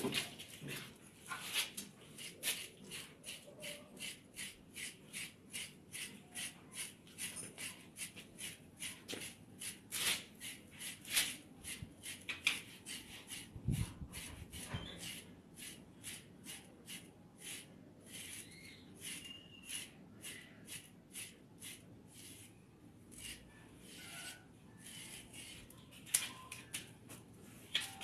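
Shedding brush raking through a German Shepherd's thick coat in short repeated strokes, about two a second, pulling out loose undercoat; the strokes thin out near the end.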